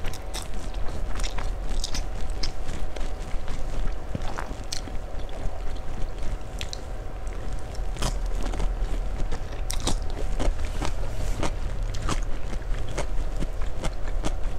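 Close-miked eating sounds: slurping and chewing a mouthful of fried Aceh noodles (mie Aceh goreng), with many small wet mouth clicks over a low steady hum.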